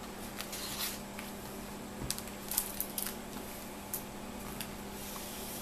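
Pages of a picture book rustling and flapping as they are handled, a string of short crinkles and light taps, over a steady low hum.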